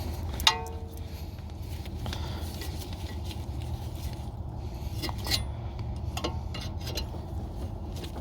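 Hand tools and plastic retaining clips being worked while removing a car's front ABS wheel-speed sensor: scattered small clicks and scrapes, with one sharp metallic clink that rings briefly about half a second in, over a steady low hum.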